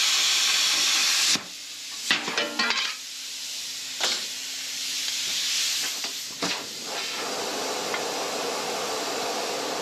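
Plasma cutter hissing as it finishes cutting a circle out of a sheet-metal street sign, the torch guided by a circle-cutting attachment. The hiss cuts off about a second and a half in, followed by a few metallic clatters as the cut-out disc drops free, then a softer hiss that fades out.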